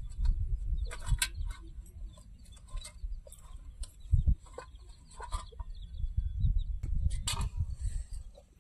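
Chickens clucking amid scattered short, sharp knocks and clicks, over a low rumble.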